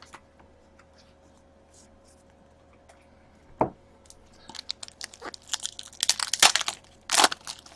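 Foil wrapper of a hockey card pack being torn open and crinkled, starting about halfway in, with a loud rip near the end. A single knock comes a little before the tearing.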